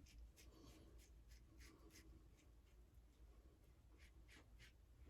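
Near silence: room tone with a few faint, scattered soft ticks.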